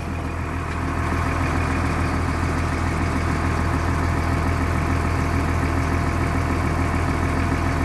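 Diesel bus engine idling steadily while still cold, its glow plugs reported not yet warm.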